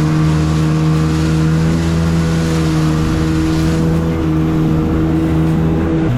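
1995 Kawasaki jet ski's two-stroke engine running at a steady cruising speed, with a rush of water and wind that eases about four seconds in. The engine pitch drops at the very end as the throttle comes off.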